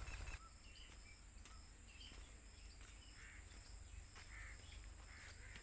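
Faint rural outdoor ambience: scattered short bird chirps over a steady high insect drone and a low rumble.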